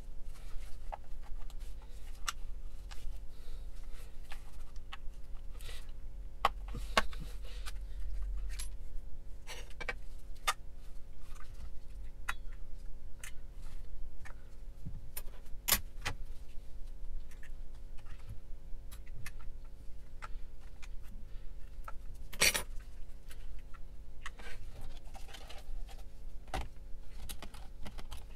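Scattered small clicks and clinks of hand work on a Hitachi cordless drill's 12 V battery pack and its cells, with one sharper clack about two-thirds of the way through, over a steady low hum.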